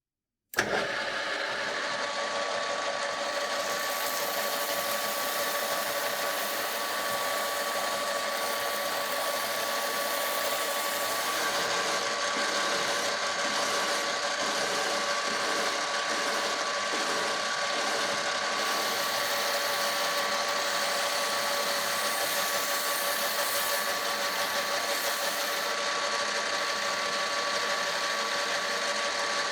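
A power tool switches on about half a second in and runs steadily, a constant motor whine over a grinding hiss.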